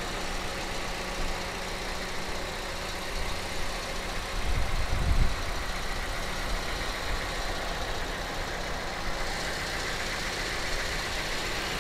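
A Toyota Avanza's four-cylinder petrol engine idling steadily, heard from the open engine bay. The idle is smooth. A brief, louder low rumble comes about four to five seconds in.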